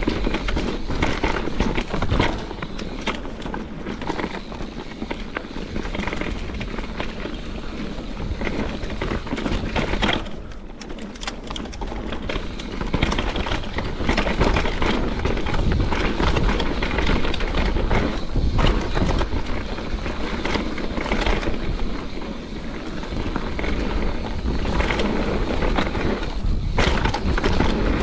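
Mountain bike ridden fast down a dirt woodland trail: tyres rolling and rumbling over the ground, with the bike rattling and knocking over roots and bumps and wind buffeting the microphone. It goes briefly quieter about ten seconds in.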